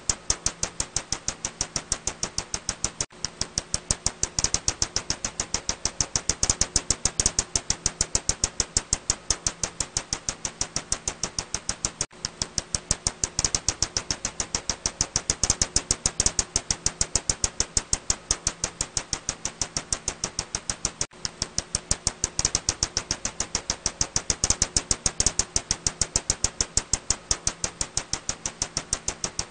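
Ussuri bat (Ikonnikov's myotis) calls heard as a rapid, even train of sharp clicks, several a second, with brief breaks about every nine seconds.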